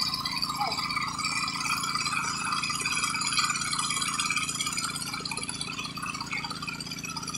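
Engines of a water-well drilling rig and its water pump running steadily while drilling.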